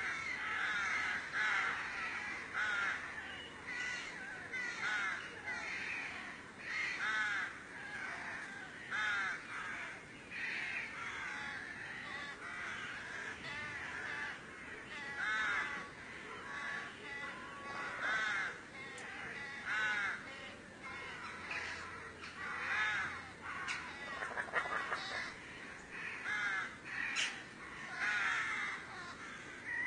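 Harsh, caw-like animal calls repeating about once a second throughout and often overlapping, which the uploader takes for the strange sound of a wild forest cat.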